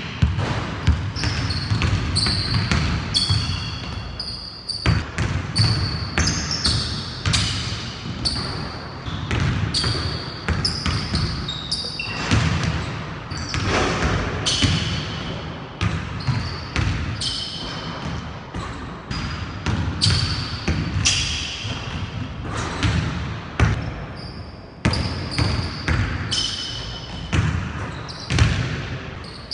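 A basketball dribbled hard on a hardwood gym floor, many quick bounces in irregular runs, echoing in the hall, with short sneaker squeaks on the court between them.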